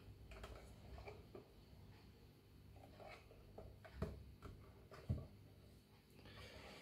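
Faint handling of a white plastic switch lamp on a wooden tabletop: light rubs and small taps, with two sharper knocks about four and five seconds in as it is set down.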